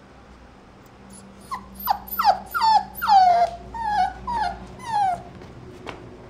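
Small mixed-breed puppy whining: a run of about eight short, high-pitched whines, each falling in pitch, starting about a second and a half in.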